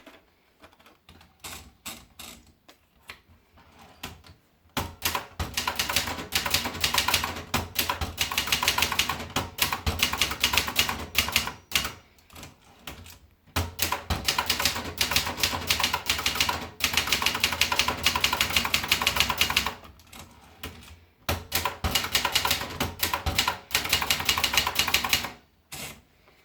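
Brother Deluxe 220 manual portable typewriter being typed on. A few scattered keystrokes come first, then three long runs of fast typing separated by short pauses.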